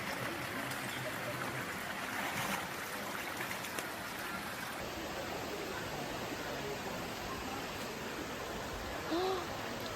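Steady rush of flowing stream water, with a short pitched call near the end.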